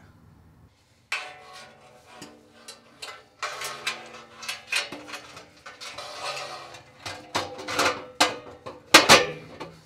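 Metal clanks, knocks and rattles as a stainless-steel wheel cover and chrome lug-nut caps are handled and fitted over a motorhome wheel. The loudest knock comes near the end.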